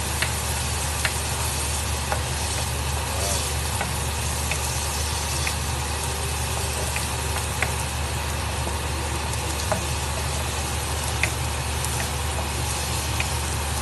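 Dried squid frying in oil in a wok: a steady sizzle as it is stirred, with occasional light clicks, over a constant low hum.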